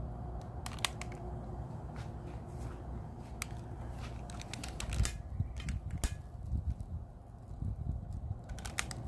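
Paper kindling burning under a charcoal chimney starter, crackling and popping in irregular sharp clicks that come thickest about four to five seconds in and again near the end, over a low rumble.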